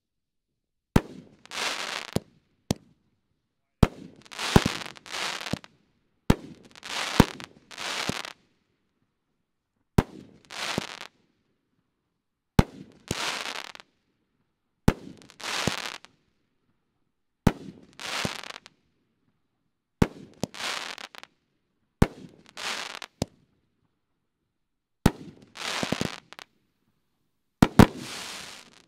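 Second Amendment consumer firework cake firing shot after shot: sharp, loud breaks, each followed by a short rush of noise. They come in quick succession at first, then about every two to three seconds.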